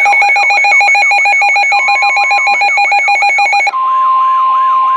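Emergency alert tones: a rapidly pulsing two-tone beeping with a rising siren-like whoop repeating about three times a second over it. About three and a half seconds in, the beeping gives way to the steady single-pitch warning alarm tone of NOAA Weather Radio, which signals a warning broadcast to follow, while the whoop keeps repeating.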